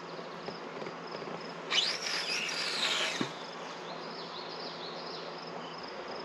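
Baitcasting reel's spool whirring as a cast pays out line, rising and then falling in pitch for about a second and a half and ending with a short knock. Insects buzz steadily behind it, with a repeating high chirp.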